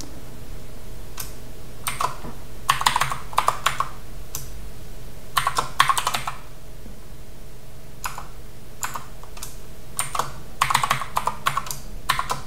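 Typing on a computer keyboard: short runs of quick keystrokes separated by pauses, over a steady low background hum.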